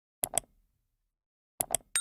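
Two quick double clicks about a second and a half apart, sharp and dry. Right at the end a bright bell-like ding starts and rings on.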